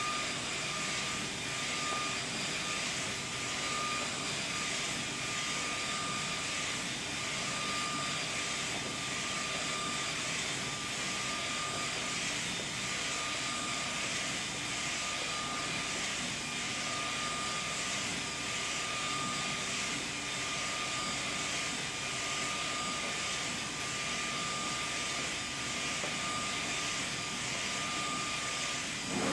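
SK UV6145 UV flatbed inkjet printer running as it prints on wood: a steady machine whir with a thin, even whine over it.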